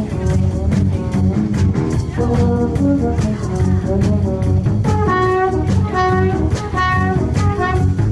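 Live horn-driven soul band playing, with a trombone out front over drums and bass at a steady beat. About five seconds in, long held brass notes come in.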